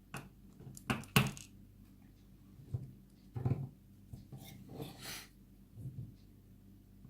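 Small hard clicks and knocks from handling a lock being taken apart, its plug, pins and springs being worked out with tools, with the two loudest taps close together about a second in and a brief scraping noise near the middle.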